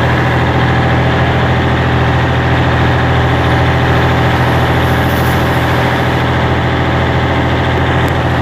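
FNM 180 truck's diesel engine rumbling steadily on the road, a low even drone with no change in pitch.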